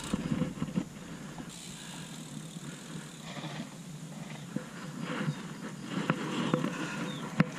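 Mountain bike rolling slowly over a dirt trail, its tyres crunching on loose dirt, with a few sharp clicks from the bike, the sharpest near the end.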